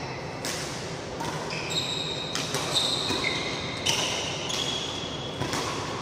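Doubles badminton rally in a large hall: rackets striking the shuttlecock and players' footfalls, with several short high squeaks of court shoes on the floor.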